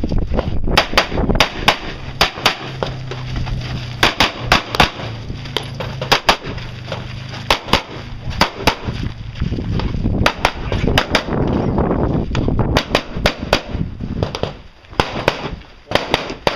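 Handgun shots fired in rapid strings, dozens of sharp reports with brief pauses between strings and a short lull near the end, as a competitor shoots a practical-shooting stage.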